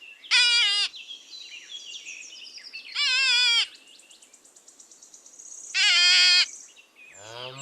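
Three short bleats about 2.5 s apart, each with a wavering pitch, typical of a young goat or lamb. Near the end a deeper, lower call begins.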